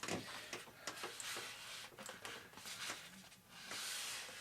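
Faint handling noises at a workbench: scattered small clicks and taps, with a soft rustle near the end.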